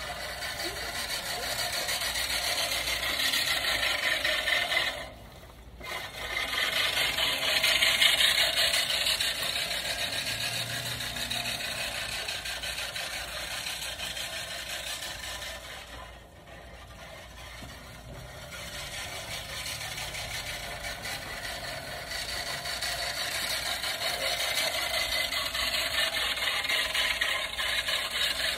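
Manual push reel mower rolling over a lawn, its spinning blades cutting grass with a steady whirring clatter. The sound drops away briefly twice, about five seconds in and again about sixteen seconds in.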